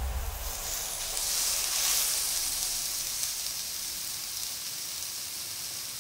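Thin slices of meat sizzling on a hot griddle pan. The hiss swells about half a second in, then slowly dies down.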